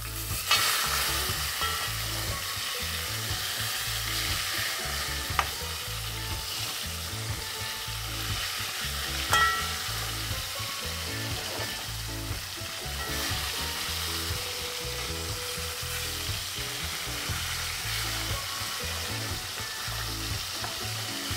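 Slices of fish frying in hot oil in a metal pot, a steady sizzle, while a metal spatula turns and scrapes them. Two sharp clinks of the utensil against the pot, about five and nine seconds in.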